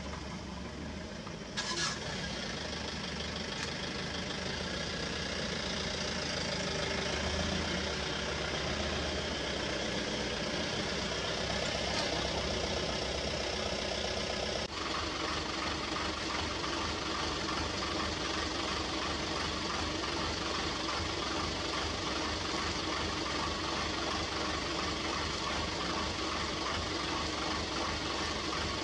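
Safari vehicle's engine idling steadily, with a low, even throb. The sound steps up about two seconds in and shifts abruptly about halfway through.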